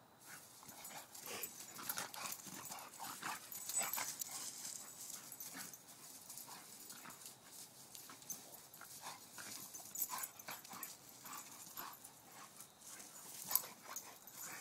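Two pit bull–type dogs roughhousing in play: paws scuffling and thudding irregularly on dry grass and leaf litter, with dog noises mixed in.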